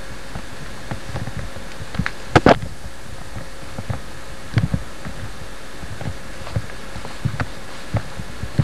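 Irregular knocks and rustles from a handheld camcorder being carried by someone walking, over a steady hiss. The loudest is a double knock about two and a half seconds in.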